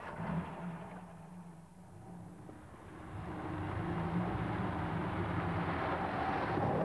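Ford Granada estate car's engine running as the car moves off and drives toward the listener, getting steadily louder from about three seconds in.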